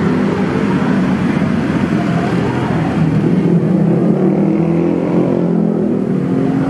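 Road traffic: steady, loud engine noise of motor vehicles running close by.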